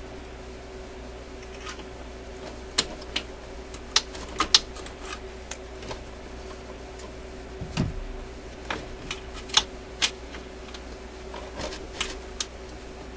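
Irregular small metallic clicks and taps of pliers and a spring clip against the record changer's metal linkage as the clip is worked onto it, with a duller knock about eight seconds in. A steady hum runs underneath.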